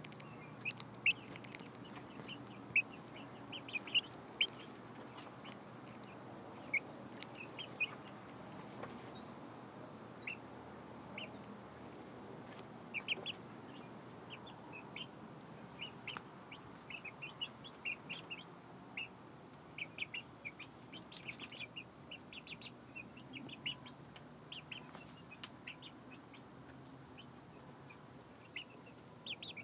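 Young pullet chickens, five to seven weeks old, peeping in many short, high calls, scattered irregularly and often several in quick succession.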